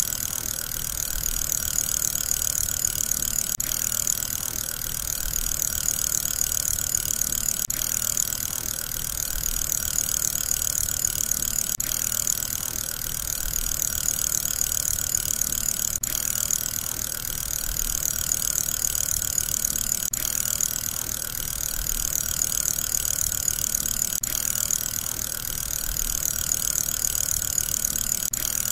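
Steady whirring of a spinning fidget spinner's bearing, with a faint tick about every four seconds where the sound repeats.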